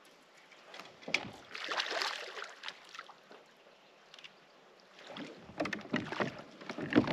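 Water splashing and knocks against a kayak in two bursts, about a second in and again about five seconds in, as a hooked bass is brought to the kayak.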